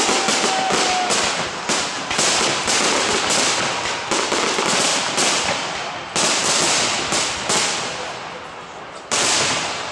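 Fireworks display: aerial shells bursting one after another with a constant crackle between the bangs. The bursts thin out and fade over a couple of seconds late on, then a loud new burst comes near the end.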